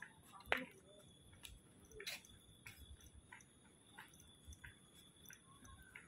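Quiet footsteps on a paved path at an easy walking pace, about one and a half steps a second, with a sharper click about half a second in. A faint steady high whine sits underneath.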